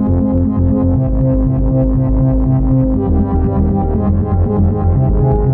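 Electronic synthesizer music from iPad synth apps, sequenced by a four-playhead Fugue Machine MIDI pattern: a rapidly pulsing bass note under several long held tones.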